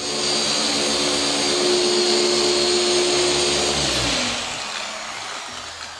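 Vacuum-type electric blower motor running loudly with a high whine, switched off about four seconds in and winding down.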